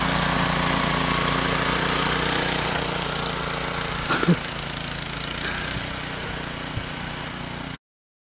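Snowblower's small engine running steadily, with a short louder sound about four seconds in. The engine sound cuts off suddenly near the end.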